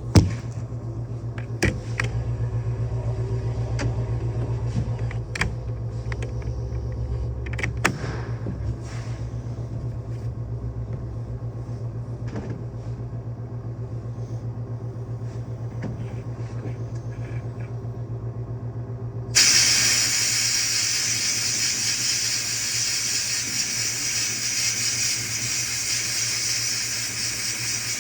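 A steady low mechanical hum with a few sharp clicks, then a loud hiss starts abruptly about two-thirds of the way in and holds for about nine seconds.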